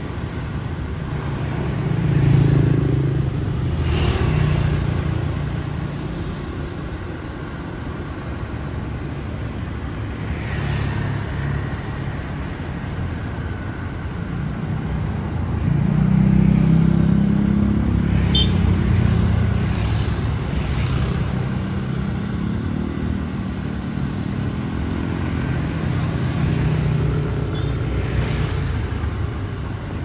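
Street traffic of cars and motorbikes passing close by one after another, their engine and tyre noise swelling and fading as each goes past, loudest about two seconds in and again around sixteen seconds.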